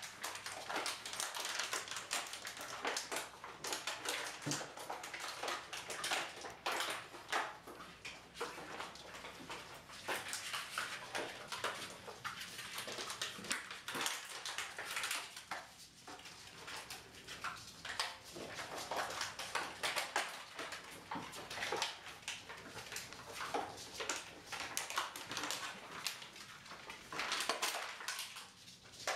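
Five-week-old Rhodesian Ridgeback puppies playing on a vinyl tile floor: a continuous irregular patter of claws clicking and scrabbling on the hard floor, with occasional small puppy whimpers.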